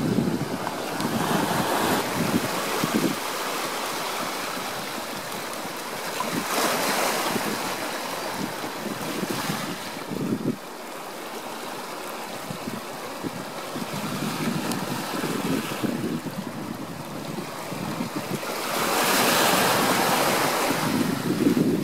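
Ocean waves washing ashore, the surf swelling and fading every few seconds, loudest near the end, with wind.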